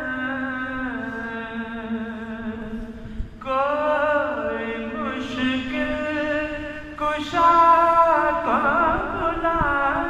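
A man's solo voice chanting an Urdu marsiya, a mourning elegy, in slow, drawn-out phrases with long held notes that waver in pitch. The voice breaks off briefly about three seconds in and again around seven seconds.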